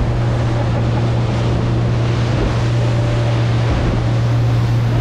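Outboard motor of a center console fishing boat running with a steady low drone, under wind on the microphone and water noise.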